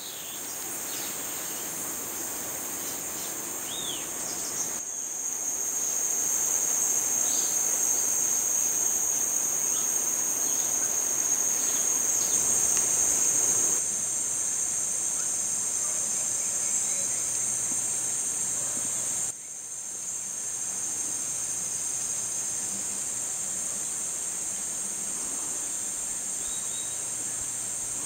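Steady high-pitched insect chorus droning without a break in the vegetation, with a few short faint chirps in the first few seconds.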